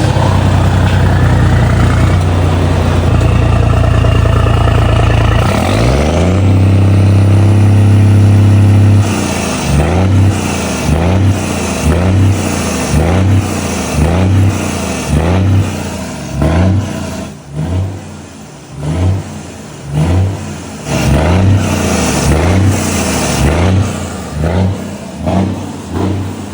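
Volvo FH truck's inline-six diesel rumbling through an aftermarket exhaust. It is held at high revs for several seconds, then revved in quick repeated throttle blips, about one a second, each rising and falling in pitch.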